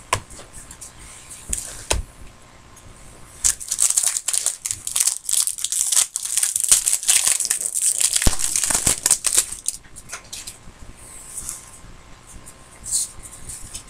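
Foil wrapper of a trading-card pack being torn open and crinkled by hand: a dense crackle lasting several seconds, after a couple of light knocks.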